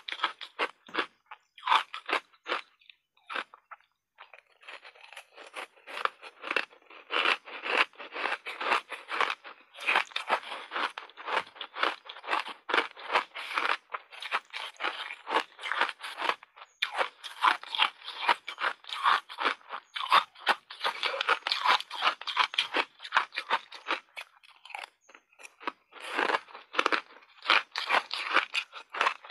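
A person biting and chewing hard block ice: a dense run of sharp, rapid crunches, with a short lull about three seconds in.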